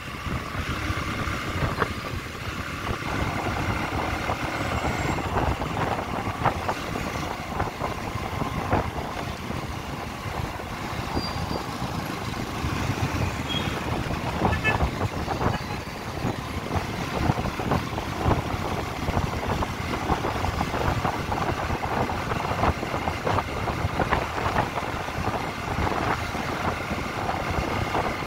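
Motorcycle on the move: a steady rumble of engine and road noise with wind rushing and buffeting over the microphone.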